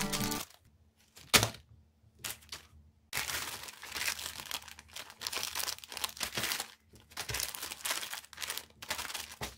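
Small plastic zip-lock bags of shoelaces crinkling in irregular bursts as they are handled and squeezed, with one sharp knock about a second and a half in.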